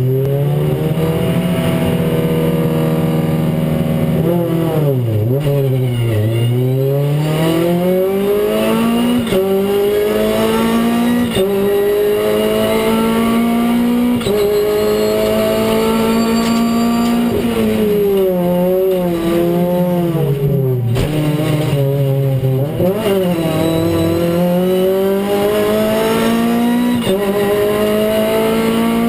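Renault Clio Cup race car's four-cylinder engine heard from inside the cabin at race pace: the revs climb through the gears with sudden drops at each upshift, and fall then climb again at the braking and downshifts for corners about 5, 19 and 23 seconds in.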